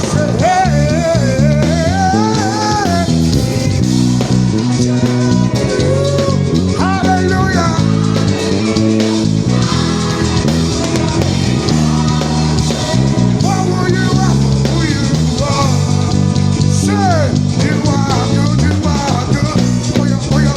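Live gospel praise band playing, with an electric bass guitar prominent, walking through a busy stepping bass line, and voices singing drawn-out wavering melody lines over the band.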